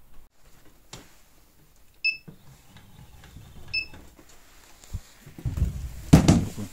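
Handheld inkjet marking printer giving two short electronic beeps about a second and a half apart. Near the end come knocks and clunks of handling, the loudest about six seconds in.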